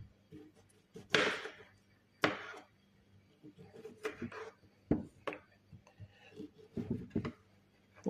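Knife cutting a lemon into small pieces on a cutting board: irregular knocks of the blade against the board, the two loudest about a second apart near the start, then a run of lighter cuts.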